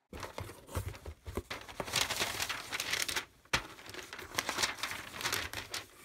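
Crumpled brown kraft paper packing wrap crinkling and rustling as it is handled inside a shipping box, with a sharp snap about three and a half seconds in.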